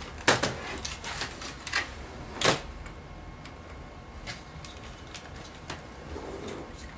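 Hard plastic clicks and knocks of a laptop's case and drive bay being handled during disassembly. There are a handful of sharp knocks in the first two and a half seconds, the loudest just after the start, then a few lighter ticks.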